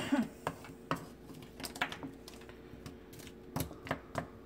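Frozen stir-fry vegetables being stirred in a hot nonstick wok: irregular clicks and taps, a few a second, from the utensil and the food against the pan.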